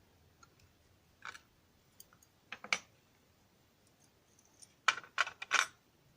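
Small metal lock parts and tools clicking and clinking as a lock cylinder is taken apart: a few separate clicks, then a quick cluster of louder clicks about five seconds in.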